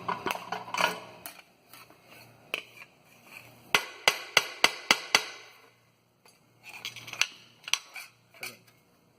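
Metal clinking and knocking from hand work on metal pieces. About four seconds in there is a run of five sharp knocks, roughly three a second, with scattered clicks and scrapes before and after.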